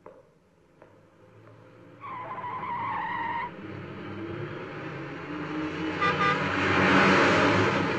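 Car tyres squealing for about a second and a half, then a car engine running as the car comes on, with two short horn toots about six seconds in and the sound loudest near the end as it draws close.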